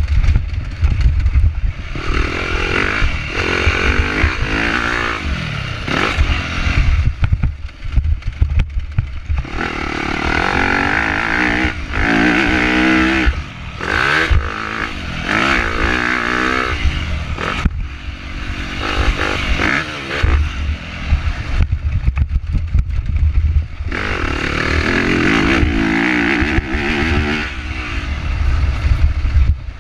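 Motocross dirt bike engine at full race pace, revving up in rising sweeps and dropping off again and again as the rider accelerates, shifts and backs off for corners.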